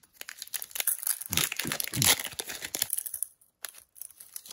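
Foil wrapper of a trading-card booster pack crinkling and tearing as the pack is ripped open: a dense crackle for about three seconds, then a few soft clicks.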